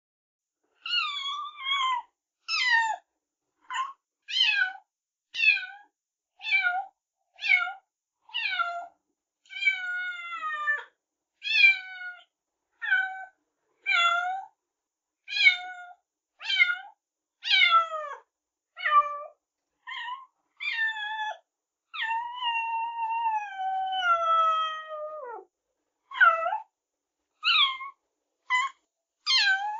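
Kitten meowing over and over, about one short high call a second, each falling in pitch. About three quarters through comes one longer, drawn-out meow.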